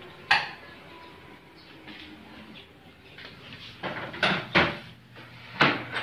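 Handling noises on a top-load washing machine: a sharp click just after the start, then a cluster of knocks and clatters about four seconds in and again near the end. A faint steady low hum comes in under them.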